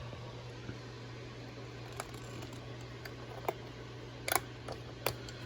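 A few sharp metallic clicks and clinks of pliers working a hose clamp, with a small cluster about three-quarters of the way in that is the loudest. A steady low hum runs underneath.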